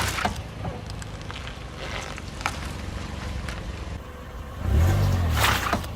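Car engine running at a low idle, with a few scattered cracks, then a brief rev about five seconds in and a loud crunching, splitting burst as the tyre rolls onto a watermelon.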